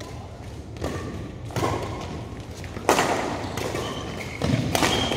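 Badminton rackets striking a shuttlecock in a doubles rally: several sharp hits about a second apart, echoing in a large hall.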